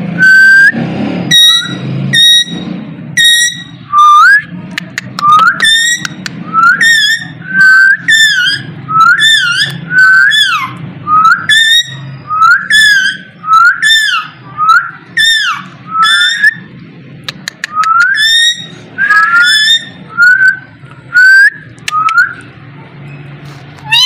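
A parakeet calling over and over: short, shrill whistled notes that slide up and then drop, about two a second, with a short lull about two-thirds of the way through. A steady low hum lies underneath.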